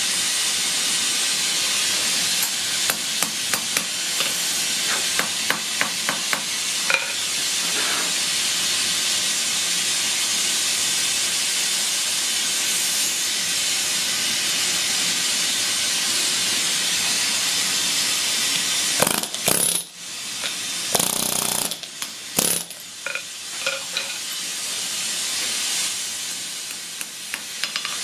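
Pneumatic handheld air hammer running in long bursts, a loud, steady rattling hiss, as it drives the hot end of a steel rod to form a ball-end punch head, with scattered sharp metal knocks. The hammering stops briefly about two-thirds of the way through, between a few loud knocks, then starts again.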